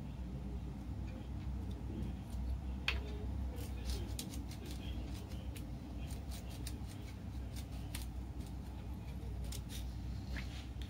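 Dried Provençal herbs shaken from a small glass spice bottle over a raw chicken: one sharper click about three seconds in, then a run of light, irregular ticks and rattles. A low steady hum underneath.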